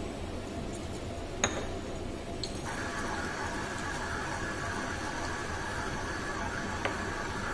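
Steady hum of a BioFlo 120 bioreactor's pump running as it feeds inoculum through the tubing. Its whirring drops out at first and comes back about two and a half seconds in. A single sharp click sounds about a second and a half in.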